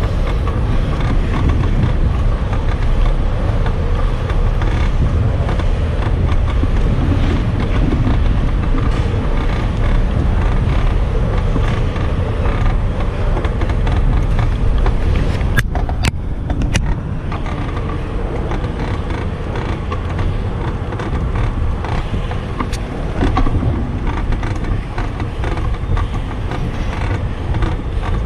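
Bicycle riding noise: wind rumbling on the camera's microphone, with the bike creaking and rattling as it rolls. There are a few sharp clicks about halfway through.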